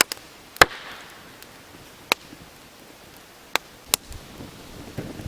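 Campfire of damp firewood burning, giving off about half a dozen sharp pops and cracks over a soft steady hiss, the loudest about half a second in.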